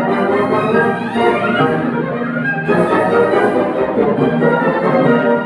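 Theatre orchestra playing classical ballet music, continuous and fairly loud, with strings to the fore.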